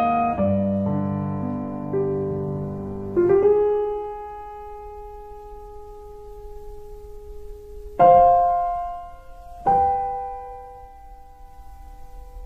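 Slow solo piano music: a few chords in the first seconds, then long notes left to ring and fade, with new notes struck about eight seconds in and again near ten.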